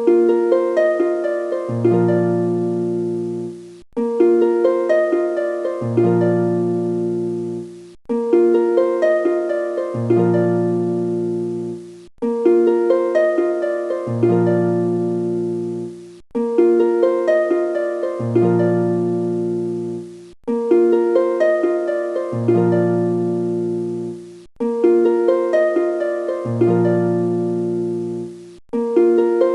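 Background music: a short plucked-string melody with low bass notes in the second half of each phrase, looping about every four seconds and cutting off briefly before each repeat.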